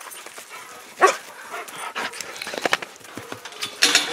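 Dog barking: one sharp, loud bark about a second in and another burst near the end.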